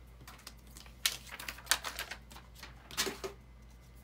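Irregular sharp clicks and taps of craft supplies being handled and set down on a tabletop, busiest between about one and two and a half seconds in, with another pair of taps near the end.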